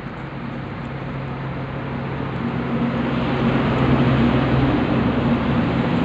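Steady low machine hum under a rushing, air-like noise that swells over the first few seconds and then holds.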